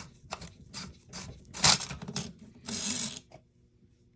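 Parts of an airsoft rifle's buffer tube and quick-change spring system being worked by hand: a run of short scraping, rasping strokes, a sharp clack about a second and a half in, and a longer sliding rasp near the end.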